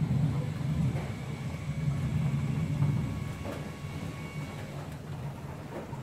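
Low rumble of distant thunder rolling on, loudest in the first half and slowly dying away over the last few seconds.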